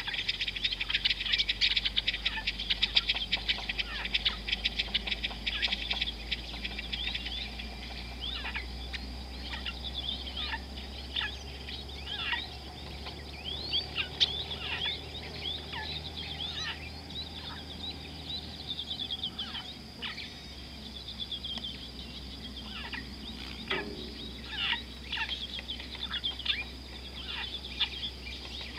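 A chorus of wild birds calling: rapid chirps and short falling whistles, densest in the first six seconds, then scattered. A steady high-pitched drone runs underneath.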